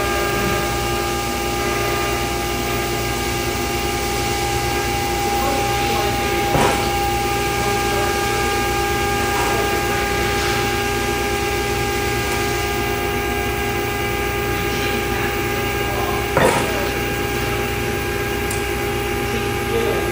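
Roper Whitney AB1014K CNC sheet-metal folder running: a steady mechanical hum from its drive, with a clunk about six and a half seconds in and a louder one about sixteen and a half seconds in as its beams move.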